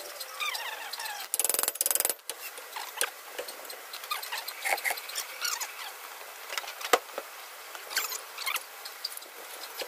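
Metal clinks and knocks from hand-tool work on a pickup's front brake and hub assembly, with a loud, rapid clatter lasting under a second about a second and a half in. High, short chirping squeaks come and go throughout.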